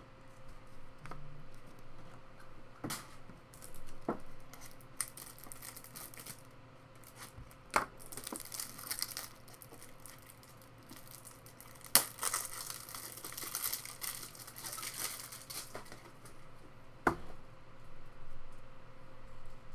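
A trading-card pack wrapper being torn open and crinkled in several bursts, the longest stretch of crinkling about two-thirds of the way through, with a few sharp clicks between.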